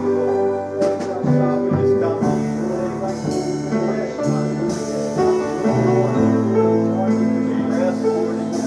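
Worship band playing an instrumental interlude: sustained keyboard chords with instruments underneath, changing chords every second or two.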